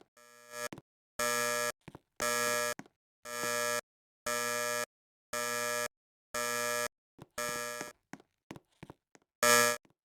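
Alarm buzzer sounding in harsh half-second buzzes about once a second, about eight in a row. After a pause it gives one last, loudest buzz near the end.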